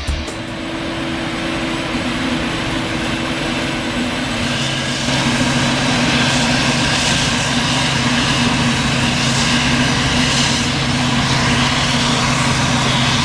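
Sound effect of heavy farm machinery engines running steadily under load. About four and a half seconds in, a second, deeper engine hum and a louder hiss join in.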